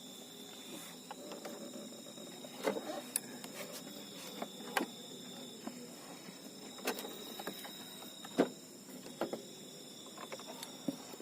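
Insects calling steadily at night, a continuous high-pitched drone, with irregular sharp clicks and knocks scattered through.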